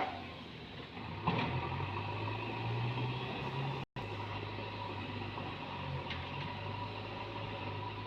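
Diesel engine of a JCB digger running steadily with a low hum, a click about a second in and a brief cut-out a little under four seconds in.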